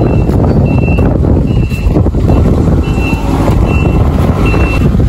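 Strong wind buffeting the microphone with a loud, low rumble. Over it runs a series of short, high electronic beeps, roughly one every three-quarters of a second.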